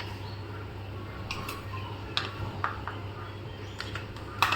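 Pot of jaggery cough syrup cooking on the stove: a few short light clicks and ticks every second or so over a low steady hum.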